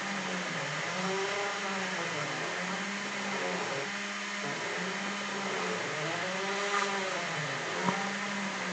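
Cyclone PCB Factory desktop CNC mill cutting a copper-clad circuit board: the spindle motor runs steadily while the axis stepper motors give tones that rise and fall as the head moves from one cut to the next. There is a sharp click near the end.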